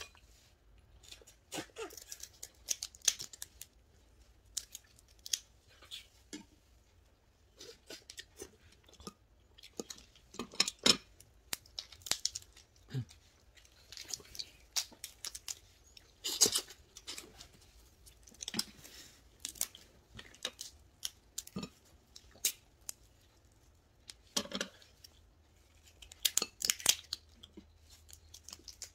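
Red snow crab shells being cracked and cut apart: irregular sharp cracks, snaps and crunches, some in quick clusters, with quiet gaps between.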